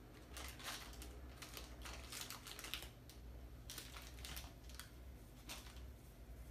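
Faint, irregular scratchy clicks of a hand scratching a dog's belly fur, over a low steady hum.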